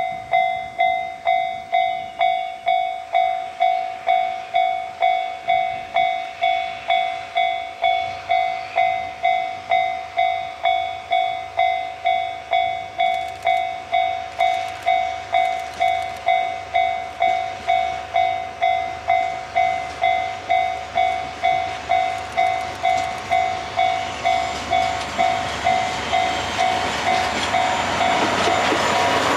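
Railway level-crossing warning bell ringing steadily, about three dings every two seconds. Under it a pair of DE10 diesel locomotives with their coaches approach, the engine and wheel-on-rail noise growing much louder near the end as the train passes close.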